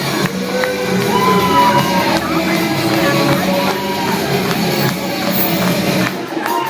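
Loud music with a steady beat, with shouts and whoops from the crowd over it. The bass drops out near the end.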